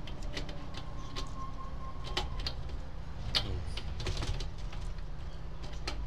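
Scattered light clicks and knocks of a Lakewood box fan's motor and gear parts being handled and fitted back together by hand, at irregular moments, over a steady low hum.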